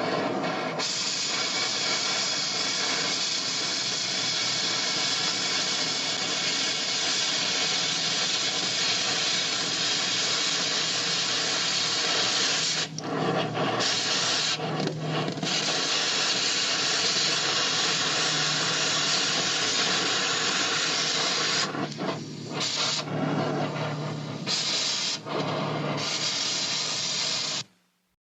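A loud, steady hiss that stops briefly a few times, then cuts off suddenly near the end.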